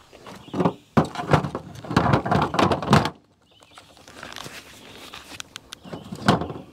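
Irregular knocks, clicks and clatter of things being handled, densest in the first three seconds, then fainter rustling with a few more knocks.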